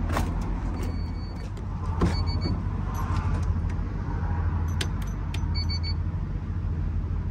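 A steady low mechanical hum while AdBlue is pumped from a dispenser into a truck's tank. A few short high beeps come about one, two and five and a half seconds in, with light clicks scattered through.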